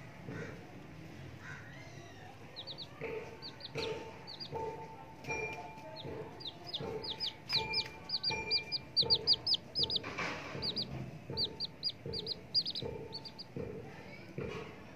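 Baby chicks peeping: quick runs of short, high, falling cheeps starting about two and a half seconds in and thinning out near the end, over quiet background music.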